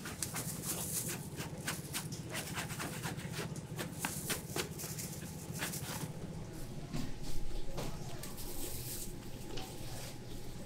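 Large soft dough being stretched, folded and scraped by hand on a floured steel worktable: scattered light slaps, taps and clicks, with a steady low machine hum underneath.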